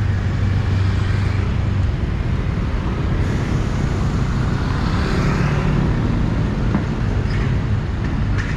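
Motorcycle engine running under wind and road noise, heard from the bike itself amid town traffic. The engine's low note drops after about two seconds as the bike slows toward a stop.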